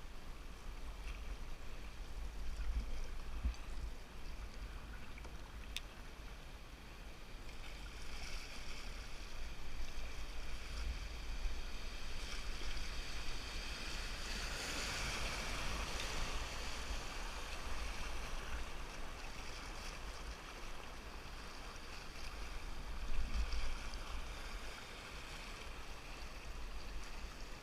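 River water rushing and splashing around a canoe running downstream. The rush swells louder through the middle and then eases off, as at a riffle. A steady low rumble runs underneath.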